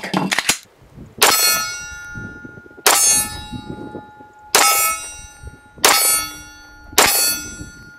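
Five shots from an Arex Delta 9mm pistol, fired at a slow, even pace about a second and a half apart. Each shot is followed by a lingering metallic ring.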